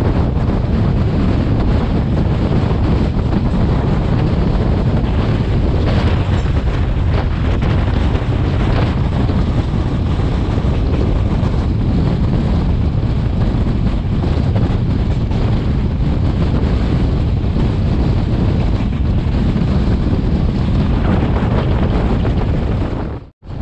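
Wind buffeting a microphone held out of the window of a fast-running Denuwara Menike express train, a steady low roar over the running noise of the train on the track. The sound cuts out abruptly for a moment near the end.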